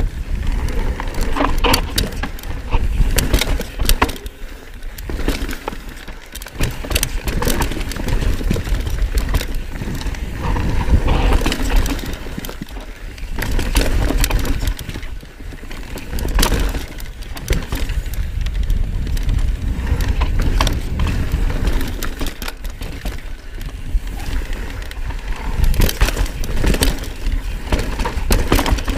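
Knolly Fugitive LT full-suspension mountain bike ridden fast down rough dirt singletrack: tyres running over dirt and rocks, with frequent rattles and clunks from the bike over bumps. Steady wind rumble on the helmet or chest camera's microphone throughout.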